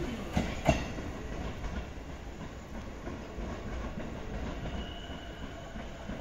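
JR East E233-series electric train pulling away. Its wheels click twice over the rail joints or points just under a second in, then the running rumble fades as it draws off, with a faint wheel squeal about five seconds in.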